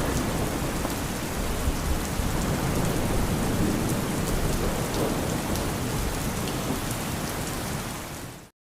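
Steady rain falling, with a low rumble of thunder underneath. It fades and stops just before the end.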